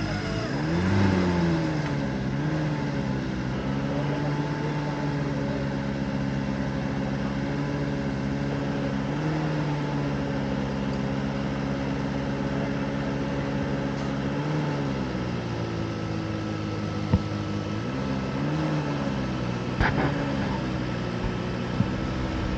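Off-road 4x4's engine running steadily, revved briefly several times with the pitch rising and falling. A few sharp knocks come near the end.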